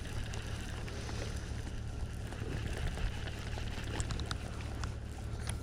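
A steady low hum with a few light clicks and ticks, from handling a baitcasting reel while a backlash is picked out of its spool.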